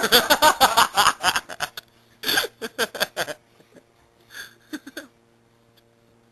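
Bursts of people laughing, in three rapid, choppy runs that fade out about five seconds in. A steady low hum runs underneath and is left on its own at the end.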